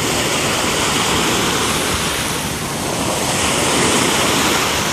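Small ocean waves breaking and washing in shallow surf, a steady rushing noise, with wind buffeting the microphone.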